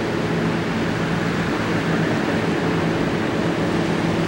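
Surf washing onto a sandy beach: a steady rush of waves with wind on the microphone, over a constant low hum.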